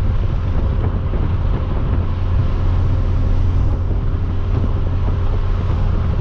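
Hyundai Veloster Turbo's turbocharged 1.6-litre four-cylinder with a catless downpipe and straight-pipe exhaust, droning steadily at a constant cruise, heard from inside the cabin with some wind noise.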